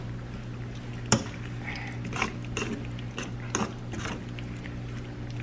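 A utensil stirring chicken and seasoning sauce in a frying pan: irregular scrapes and clinks against the pan, the sharpest knock about a second in. A steady low hum runs underneath.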